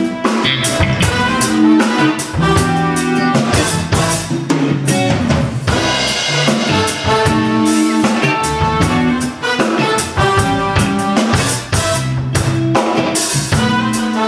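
Instrumental intro of an R&B song: a drum kit keeps a steady beat, with snare and bass drum, under sustained chords and a bass line; no singing yet.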